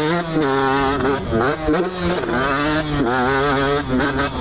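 2004 KTM 125 SX's two-stroke single-cylinder engine under race throttle. Its pitch climbs and drops back several times as the rider works the throttle and gears.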